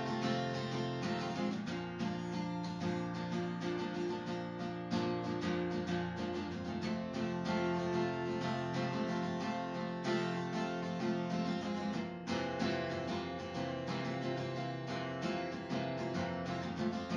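Background music led by strummed acoustic guitar, with a steady rhythm.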